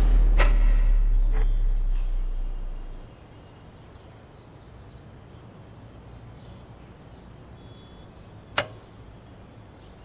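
Film sound-design effect: a deep rumble fading away over the first few seconds under a thin, high-pitched ringing tone that holds steady until a sharp click near the end.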